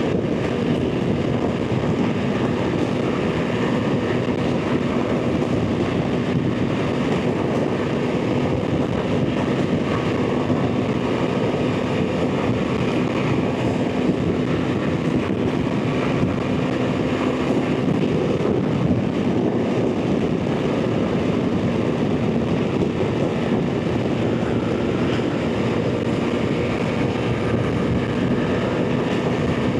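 BMW R 1300 GS Adventure's boxer-twin engine running at a steady motorway cruise, a constant drone under heavy wind rush and road noise.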